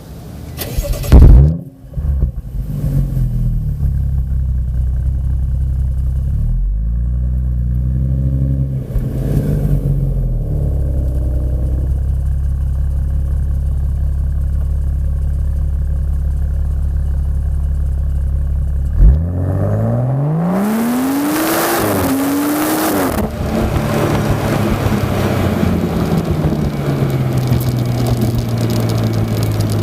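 BMW M135i's 3.0-litre turbocharged straight-six starting with a loud flare about a second in, then idling through the exhaust. It is blipped briefly, idles steadily, then is revved twice in quick succession near the middle before dropping back to idle.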